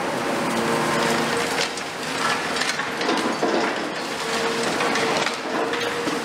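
Hydraulic demolition crusher on a CAT 336F long-front excavator biting into a concrete floor slab: irregular cracking and crunching of breaking concrete with debris falling, over the steady hum of the excavator's engine and hydraulics.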